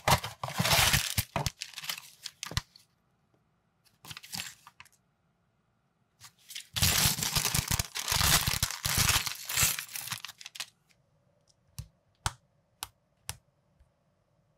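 Small cardboard box being opened with paper rustling and tearing, then a thin plastic parts bag torn open and crinkled for a few seconds. Near the end, four or five sharp clicks of small plastic minifigure pieces being pressed together.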